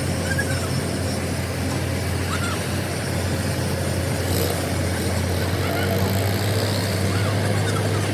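Steady low drone of an engine running, with short high chirps now and then.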